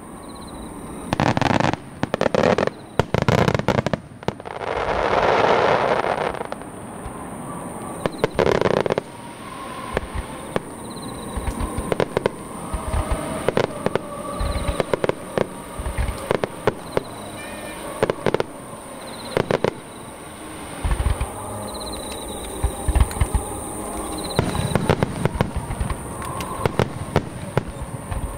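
Aerial fireworks display: shells bursting in quick succession with sharp bangs throughout, and a longer rushing burst lasting about two seconds around five seconds in.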